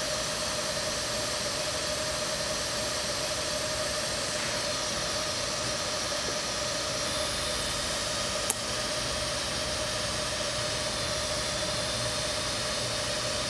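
DC TIG welding arc on thin stainless steel, run at 45 amps from an Everlast PowerTIG 255EXT: a steady hiss with a steady hum under it. There is one short click a little past halfway.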